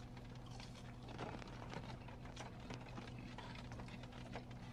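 Faint eating sounds: chewing and lip-smacking on a chicken tender, with light napkin rustling, as small scattered clicks over a steady low hum.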